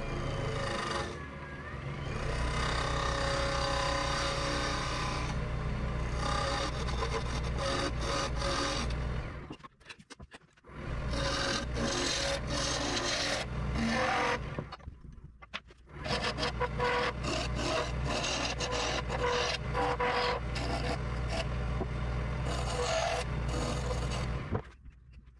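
A wood lathe runs with a hand-held turning tool cutting into a spinning black walnut and epoxy duck call blank: a scraping cut over the lathe motor's steady hum. The sound drops out for about a second roughly ten seconds in, dips again around fifteen seconds, and falls away near the end.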